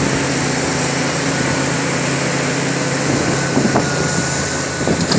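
Caterpillar 336D2 hydraulic excavator's diesel engine running steadily under load while the hydraulics swing and lift a full bucket, with a faint high whine in the second half.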